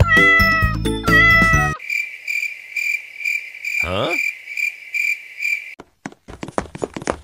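A cartoon cat meowing twice as a sound effect, bright and high. Then comes a steady pulsing chirp like crickets, with a falling whistle about four seconds in, and a quick run of taps near the end.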